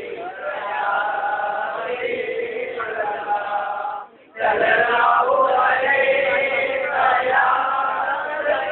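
Men's voices chanting an Islamic devotional chant together in long held notes, with a brief break about four seconds in.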